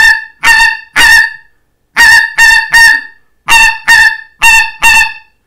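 Solway double-reed goose call, fitted with a Pinkfoot and a Greylag reed, blown to imitate the pink-footed goose's double note. About ten short, loud, high notes come in three quick bursts.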